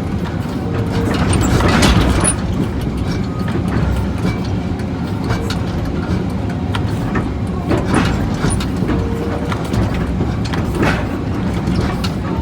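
Large diesel excavator engine running steadily, with several irregular knocks and crunches over it, the loudest about two seconds in.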